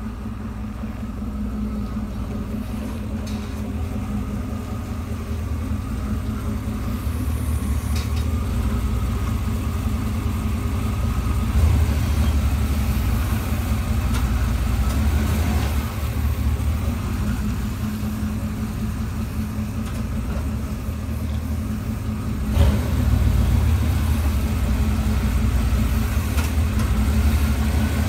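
Chevrolet pickup engine running at low idle as the truck rolls slowly up and stops close by, growing louder as it nears and then holding steady. A single sharp knock comes late on.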